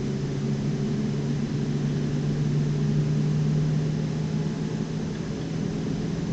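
Ferrari 458 Italia's V8 running steadily at low revs in fifth gear, cruising gently on a cool-down lap, heard from inside the cabin with road noise.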